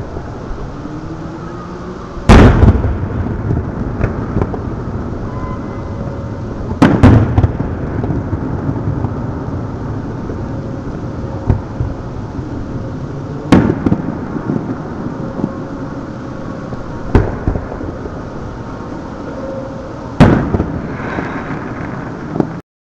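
Aerial firework shells bursting in the distance: a deep boom every few seconds, five big ones and a smaller one, each trailing off in a rolling echo over a steady low rumble.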